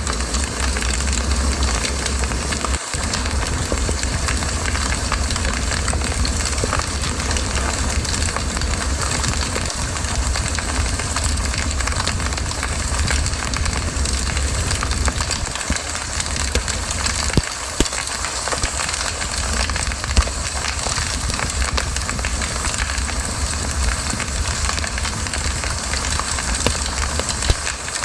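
Campfire burning: a steady hiss over a low rumble, with scattered crackles and a few louder pops.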